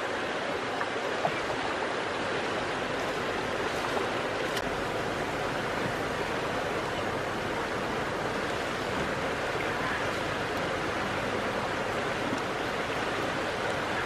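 Steady rushing of flowing river water, an even wash of noise with no change.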